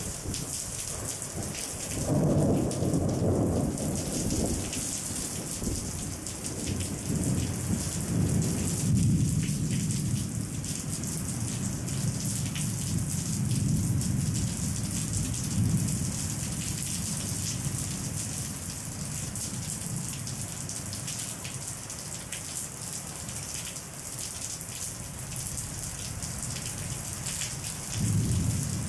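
Steady rain with rolls of thunder. The low rumbles swell about two seconds in, again through the middle, and once more near the end.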